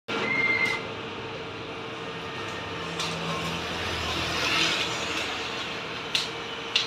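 Steady background noise with a faint constant hum, and a few light clicks near the end.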